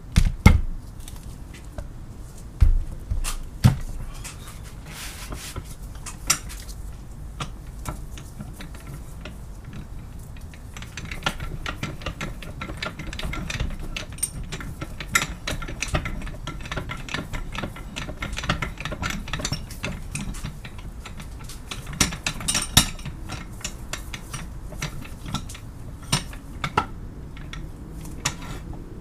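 Metal tools and vise parts clinking and clattering as they are handled, with scattered sharp knocks and a stretch of scraping and rattling in the middle. The loudest knocks come at the start and again about three-quarters of the way through.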